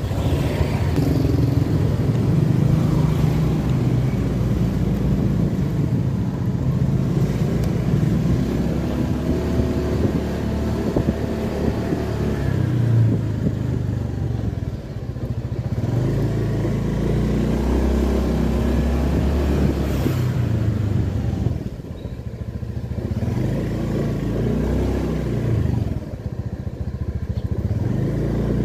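Honda Beat scooter's single-cylinder engine running under way. Its note rises and falls as the throttle is opened and eased through slow riding, with steady road and wind noise.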